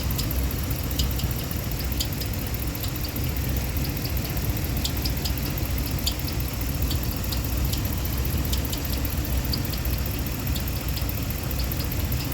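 A 2015 Ram 1500's 5.7 Hemi V8 idling with a steady low hum and short, high-pitched chirps at an irregular pace of about one or two a second. The customer likens the noise to a chick inside the engine, and the mechanic suspects a valve, lifter or camshaft problem.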